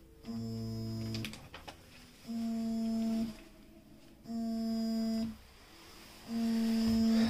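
Smartphone vibrating on a wooden desk for an incoming call: four buzzes of about a second each, two seconds apart, each a little louder than the one before.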